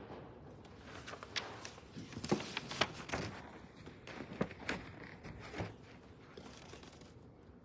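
A large cross of rough wooden boards being handled and set down: a string of wooden knocks and thuds, the sharpest about two to three seconds in, with a few more around the middle.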